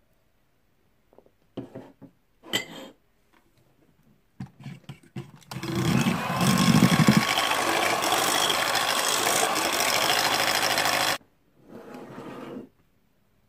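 Electric hand mixer with twin wire beaters running steadily in a stainless steel bowl, beating coconut flour into cake batter, for about five and a half seconds before cutting off suddenly. A few short knocks come before it.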